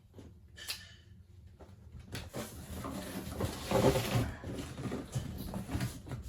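Packaging being handled during an unboxing: a light click, then about two seconds in a stretch of rustling and scraping with a few knocks, loudest about four seconds in.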